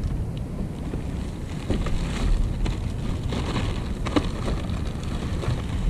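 Wind buffeting the microphone with a steady low rumble, with light water sounds and faint small splashes against the kayak.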